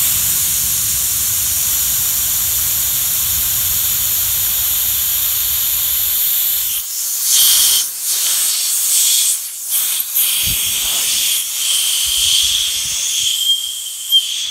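Air hissing out of a tubeless tyre through the cracked base of a rubber snap-in valve stem as it is bent by hand: the valve's rubber has split almost all the way round. The hiss is steady for about the first seven seconds, then starts and stops as the valve is moved, with a thin whistle near the end.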